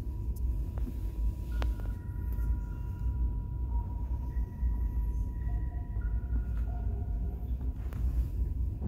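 A steady low rumble with faint, distant music over it: a few held notes that change pitch every second or two.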